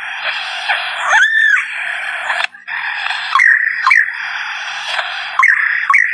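A bird giving a long, harsh chattering run of odd, varied notes mixed with short whistled slides, breaking off briefly about two and a half seconds in.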